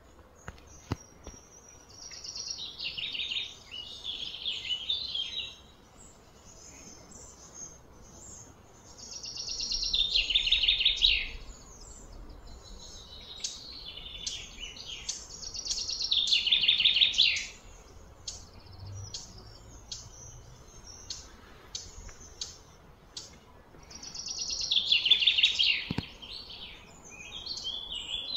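A bird singing in four repeated bouts. Each bout is a run of high notes that swells into a loud, rapid buzzy trill and then stops abruptly, with short high chirps in between.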